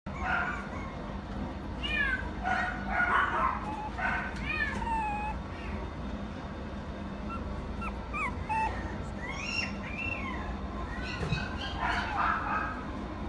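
Mixed-breed puppy whining and whimpering: a series of short, high cries that bend up and down in pitch, over a steady low hum.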